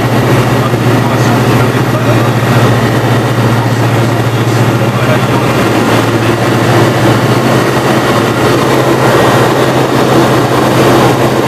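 Single-engine light aircraft's propeller engine running at full takeoff power, heard inside the cockpit as a loud, steady drone during the takeoff roll, its tone shifting slightly near the end as the nose lifts.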